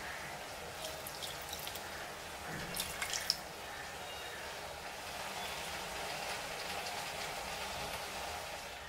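Water poured into a stainless-steel mixer-grinder jar onto coarsely ground spices, with a cluster of splashes and clinks around three seconds in over a steady hiss.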